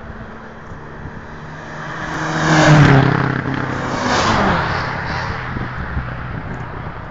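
A car passing close by at speed. Its engine note builds to a peak nearly three seconds in, then drops in pitch and fades as it pulls away.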